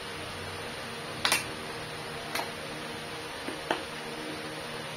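Sharp plastic clicks as a dark visor is pressed into the side locking mechanism of a Gille full-face motorcycle helmet: a double click about a second in, a lighter click near the middle, and two small clicks near the end.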